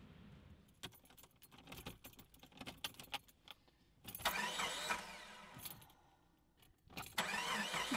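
Keys jingling in two short bursts of about a second each inside a small car, after a run of scattered light clicks.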